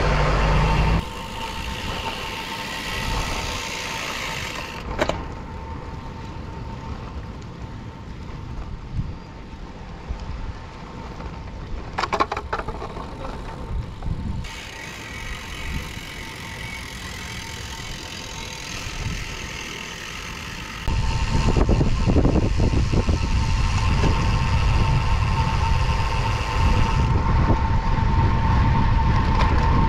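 Wind buffeting a bike-mounted camera's microphone on a moving road bike, with tyre noise on a concrete road. The low wind rumble becomes much louder about two-thirds of the way through.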